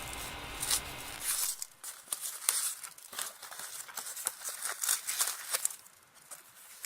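Shipping box packaging being handled: a run of short crinkling and rustling strokes that thin out near the end.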